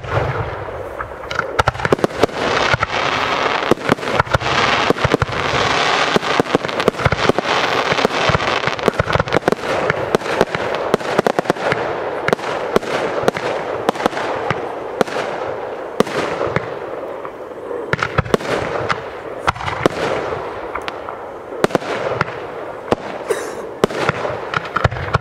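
Fireworks display: aerial shells launching and bursting one after another, sharp bangs over a continuous crackling and fizzing of burning stars.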